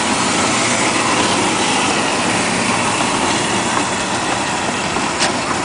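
Steady running noise of a kiddie jeep ride, the small cars rolling around their guide track, with a brief click about five seconds in.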